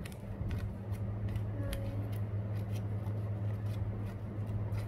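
Scissors snipping through paper, many short cuts at an uneven pace, over a steady low hum.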